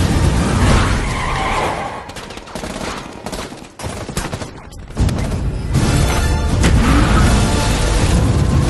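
Action trailer soundtrack: music mixed with an explosion, a rapid burst of gunfire and car sounds. The mix drops away briefly just before the middle and comes back loud about five seconds in.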